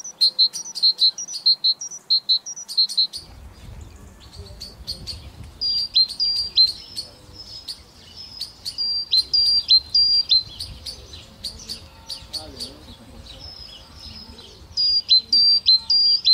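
Small songbirds chirping: short high notes repeated several times a second, a quick run in the first few seconds and then downward-slurred notes from about six seconds in.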